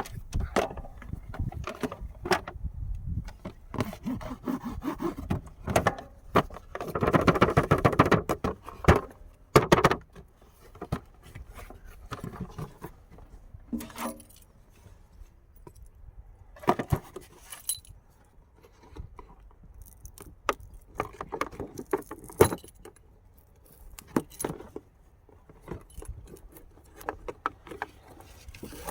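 Hard plastic and small parts being handled: a run of clicks, rattles and scrapes, with a denser rustling, rattling stretch around seven to nine seconds in.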